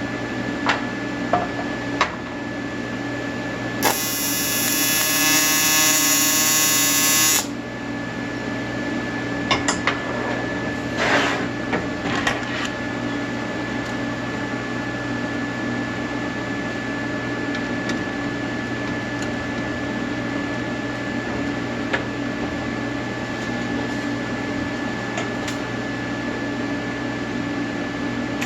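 Welding arc buzzing steadily, with a louder, harsher buzz from about four seconds in to about seven and a half, and a few sharp clicks scattered through.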